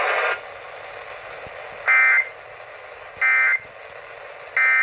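Emergency Alert System end-of-message (EOM) data tones played over a radio: three short, shrill warbling data bursts about a second apart, marking the end of the test alert. Steady radio hiss lies underneath, and a louder noise cuts off just after the start.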